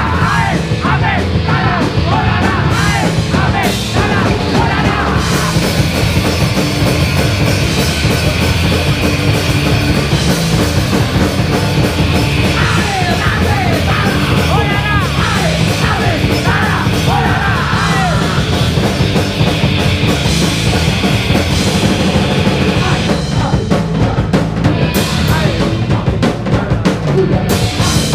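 Live punk rock band playing loud: drum kit, electric guitars and bass, with shouted vocals into a microphone for the first few seconds and again around the middle.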